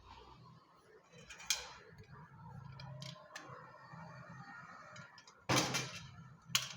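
Copper AC pipe being bent in a hand tube bender: scattered metallic clicks and ticks of the tool and tubing being handled, with two louder clattering knocks near the end.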